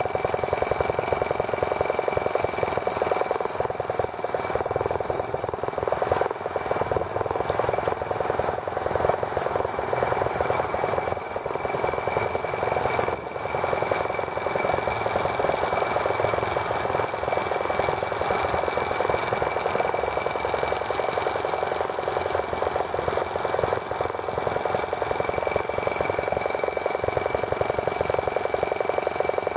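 Small model gasoline engine of a T26 kit toy tractor running steadily with a fast, even firing rhythm, under a steady high whine, as the tractor drives along.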